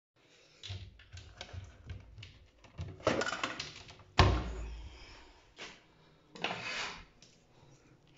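Handling noises in a small tiled bathroom: irregular clicks, knocks and rustles of toiletries and a cabinet being moved and opened while cleaning, with one louder thunk about four seconds in.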